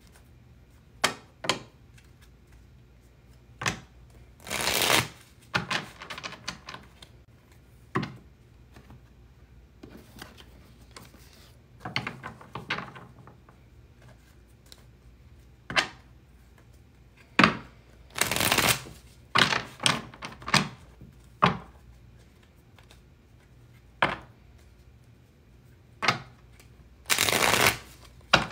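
A deck of tarot cards being shuffled by hand: sharp card slaps and clicks scattered with pauses between them, and three longer rustling runs of about a second each.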